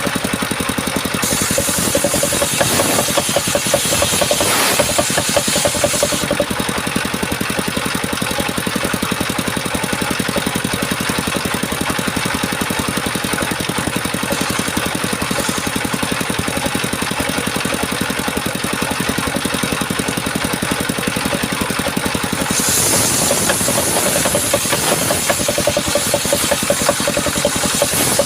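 Engine-driven circular sawmill running steadily. A louder high hiss joins it from about a second in until about six seconds, and again over the last six seconds, as the blade saws through the coconut-wood timber.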